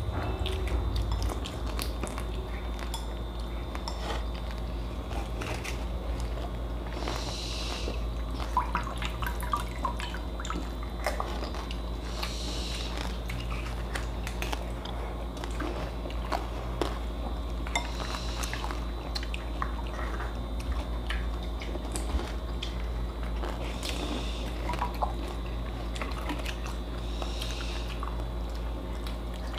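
Two people eating pani puri with chopsticks. Crisp puri shells crunch and the water is slurped in short bursts every few seconds, and the chopsticks tap on plates and bowls. A steady low hum runs underneath.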